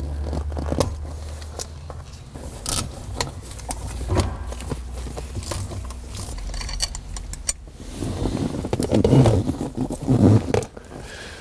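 Light metallic clinks, rattles and scrapes of hand tools and loose parts while the gear shifter is worked loose from the transmission, with a denser stretch of knocking near the end.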